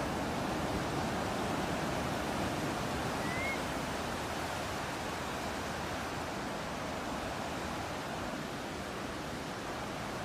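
Steady rush of ocean surf and breeze, with a single short rising bird chirp about three seconds in.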